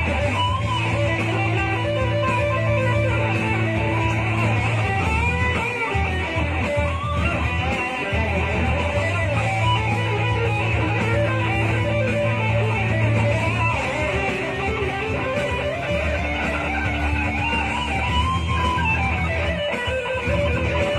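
Electric guitar playing a slow improvised lead line with string bends and vibrato, over long held low notes.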